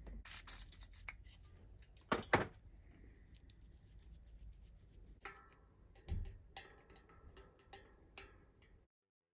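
Small metallic clicks and taps of loose steel hub bearing balls and the hub axle being handled during a cup-and-cone hub rebuild. Two sharper taps come about two seconds in, and ringing metal clinks follow in the second half as the axle and cone go into the hub. The sound cuts off just before the end.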